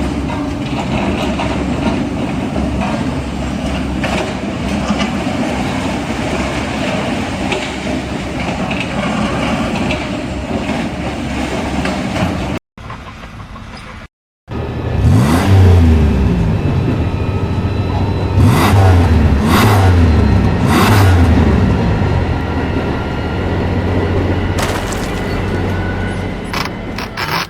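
Engine noise from two clips. First a steady mechanical rumble; then, after a short break, a heavy engine revving up and down several times.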